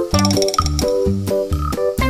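Upbeat background music: quick, bouncy notes at about four a second over a repeating bass line, with a light tinkling part high up in the first second.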